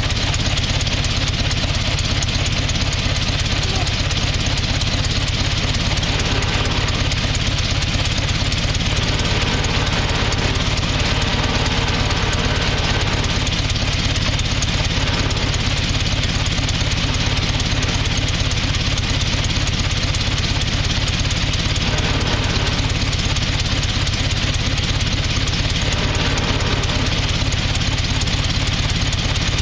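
Hot rod's engine idling steadily, with a fast even firing pulse.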